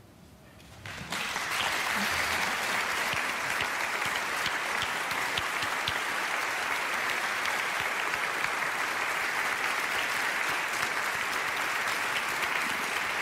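Audience applause that breaks out suddenly about a second in and then holds steady.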